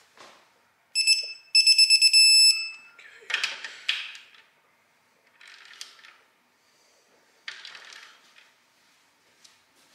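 Digital torque wrench beeping as a 12 mm oil pan bolt reaches its set 15 ft-lb: one short beep about a second in, then a quick run of beeps. The wrench's ratchet then clicks and rattles a few times as it is worked back.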